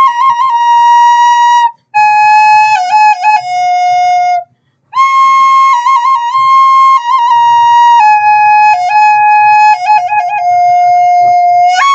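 Background music: a solo flute plays a slow melody of long held notes, decorated with quick flicked grace notes, with two short breaks between phrases.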